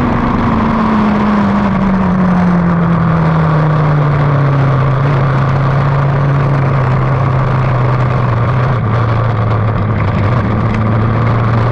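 Lightning sprint car's engine slowing down, its pitch falling over the first few seconds and then holding at a steady lower speed, over a steady rushing noise.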